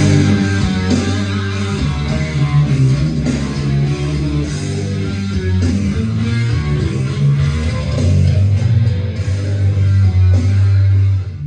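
Rock music with guitars and a heavy bass line played at full blast through a PA sound system.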